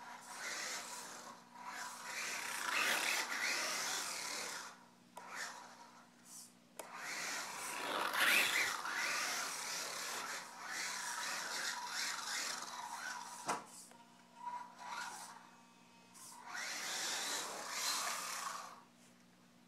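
ECX Smash 1/18 RC truck's brushed electric motor and gears whining, rising and falling in pitch, in several bursts of a few seconds as it drives on carpet, with one sharp knock about two-thirds of the way through.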